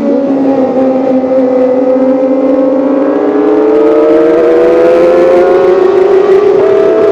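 Kawasaki ZX-25R's 250 cc inline-four engine and exhaust running at high revs under load, the pitch climbing slowly and steadily, with a short change in tone near the end.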